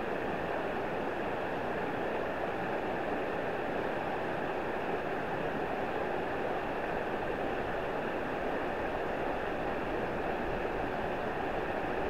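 River water rushing over a shallow rocky riffle: a steady, even rush of whitewater.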